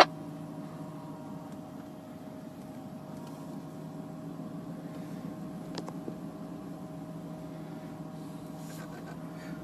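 Steady low drone of a car driving at highway speed, heard from inside the cabin: engine and tyre noise with no change in pace. A single faint click comes about six seconds in.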